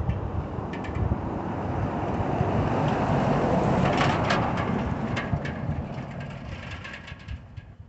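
Pickup truck driving past on the road, its tyre and engine noise swelling to a peak about three to four seconds in and then fading away, with a few short clicks along the way.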